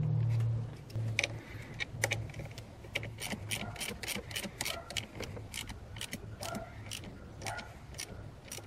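Ratchet wrench clicking in quick runs as it tightens the clamp nut on a car battery's positive terminal while the cable is reconnected. A low hum fades out within the first second.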